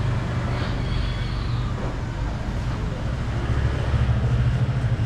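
Steady low motor rumble, with a brief faint high tone about a second in.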